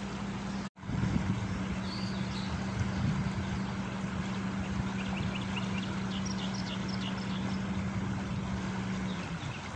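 A steady motor hum holding one low pitch over a rough, noisy background, cutting out for an instant about a second in. A run of faint, short high chirps comes about halfway through.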